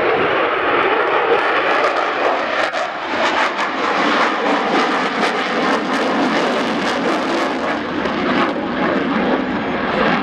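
Eurofighter Typhoon's twin Eurojet EJ200 jet engines: loud, steady jet noise as the fighter makes a fast display pass overhead, with a ragged crackle through the middle several seconds.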